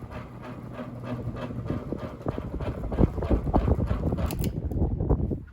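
Hunter Original ceiling fan's shaded-pole motor running with a low hum and an even, rhythmic clacking, which the owner puts down to a splitting cane blade vibrating. The sound cuts off suddenly near the end.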